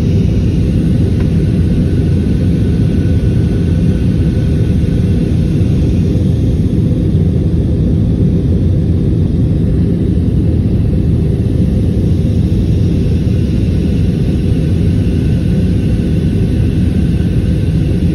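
Jet airliner cabin noise heard from a window seat: a steady, loud, low rumble of the engines and airflow, unchanging throughout.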